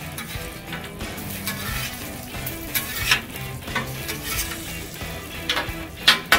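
Steel spatula scraping and tapping across a hot flat-top griddle several times as frozen hash brown patties are pushed through bacon grease, over a steady sizzle of frying.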